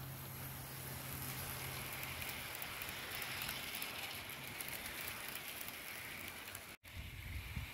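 Model diesel locomotive and its wagons rolling past on garden railway track: a low motor hum as the locomotive goes by, then a steady rattle of wagon wheels on the rails. The sound drops out abruptly for an instant near the end.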